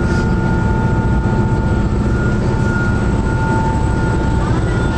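Fast ferry's engines droning steadily, heard inside the passenger cabin: a low rumble with two steady whining tones above it.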